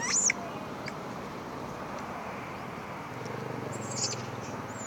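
Short high-pitched animal chirps: one loud at the start and a few more near the end, over a steady outdoor background hiss. A faint low engine hum passes around three to four seconds in.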